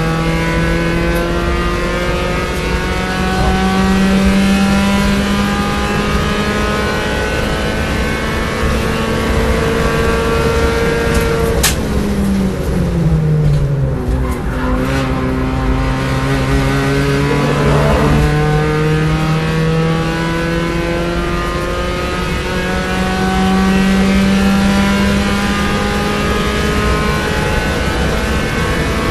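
Onboard sound of a B-Spec race car's four-cylinder engine at full throttle, its note climbing steadily. About twelve seconds in it drops away as the car brakes and downshifts for a corner, with a brief tyre squeal through the turn. Then the engine pulls hard again, rising in pitch through an upshift.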